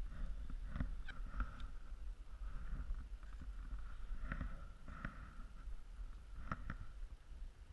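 Mountain bike rolling slowly across wet pavement: a steady low rumble with scattered light clicks and rattles from the bike.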